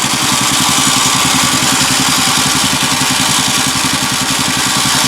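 Yamaha Rhino 660 side-by-side's single-cylinder engine idling with a steady, rapid pulse, while its electric winch winds in new synthetic rope.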